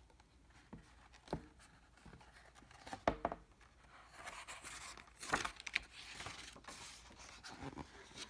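A picture book's paper page being handled and turned: a few soft taps, then rustling and sliding of the page from about four seconds in.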